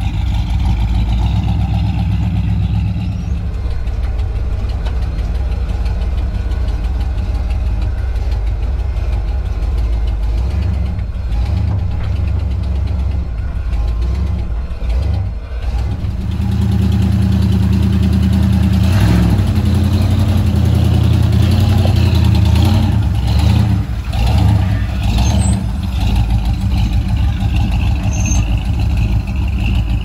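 Ford Bronco engine running at low trail speed while crawling over rock, getting louder about halfway through as it works harder, with a few short knocks and rattles from the vehicle in the second half.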